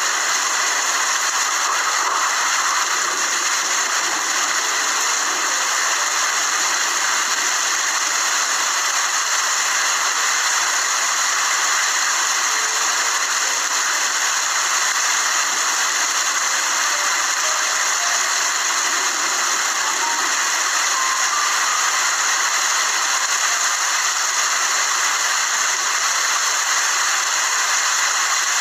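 Steady, unbroken rainfall, an even wash of drops with no change in strength.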